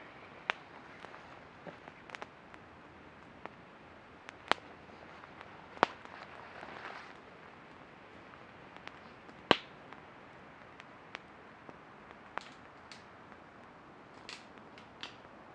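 Wood campfire of dry sticks crackling, with sharp pops at irregular intervals, the loudest about halfway through.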